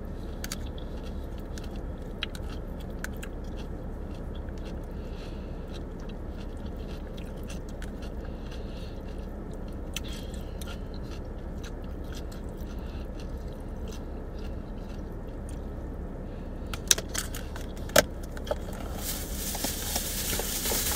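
A person eating: chewing with many small clicks and scrapes over a steady low hum. Near the end come a couple of sharper clicks, then a rising rustle.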